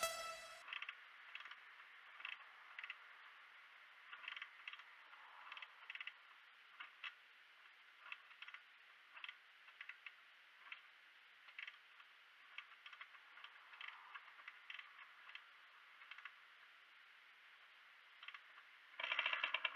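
Faint, irregular mechanical clicking, about one or two clicks a second, as the Rieju MRX 50 is being kick-started. Near the end, its Minarelli AM6 50cc two-stroke engine catches and runs with a fast, even beat.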